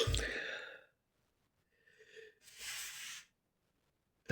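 A man's breath sounds between sentences: a sharp, sudden breath at the start that fades over about a second, a longer noisy in-breath in the middle, and another sharp breath at the end.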